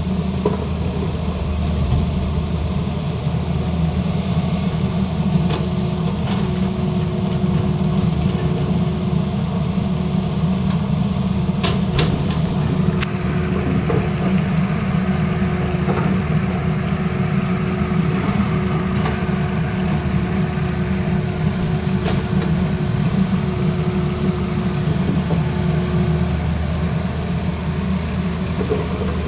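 Tata Hitachi ZAXIS hydraulic excavator's diesel engine running steadily as the machine digs and swings. A faint tone comes and goes over the engine, and there are a few sharp knocks about halfway through.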